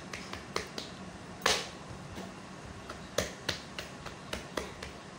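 Hands pressing and patting stuffed potato naan dough flat on a board: a string of irregular sharp pats and slaps, the loudest about one and a half seconds in.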